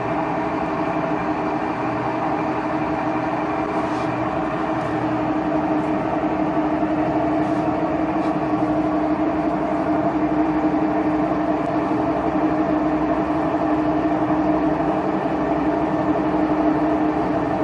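Samsung washing machine running its spin cycle: a steady motor hum and drum whir, slowly getting a little louder, running smoothly on new suspension rods.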